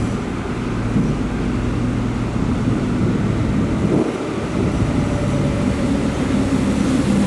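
Electric suburban trains at a station: a steady electrical hum with low tones, growing slowly louder as an EDI Comeng electric train draws in toward the platform.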